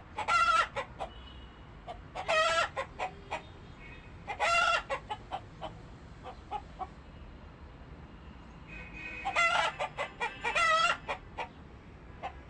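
Chickens clucking, with five loud short calls: three about two seconds apart, then a quieter stretch of soft clucks, then two more near the end.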